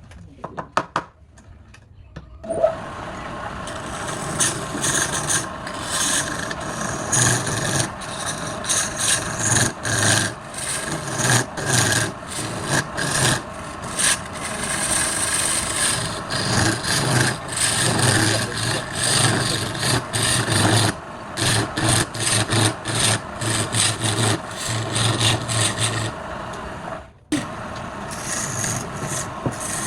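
Wood lathe running with a tool scraping against the spinning wood, the cutting noise swelling and easing in short strokes. A few light taps come in the first two seconds before the cutting starts, and it breaks off briefly near the end.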